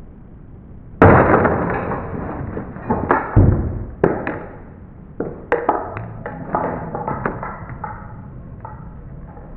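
A sudden loud metallic clunk about a second in, then a run of clattering metal knocks and clinks, some briefly ringing: hand tools and the steel casing of a Nissan Leaf battery module stack being worked apart.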